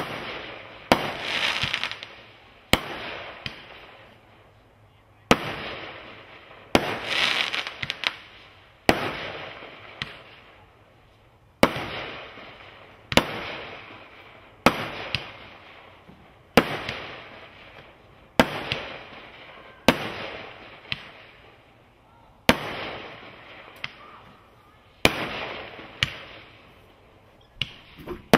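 Brothers Pyrotechnics Grand Slam firework cake firing one shot after another, about every one and a half to two seconds, each sharp launch bang followed by a burst of crackle that fades away.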